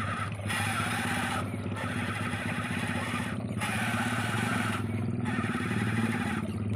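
A toy-grade RC crawler's electric motor and gearbox whirring steadily as the truck drives through shallow water in a ditch, over a hiss of churned water that breaks off briefly several times.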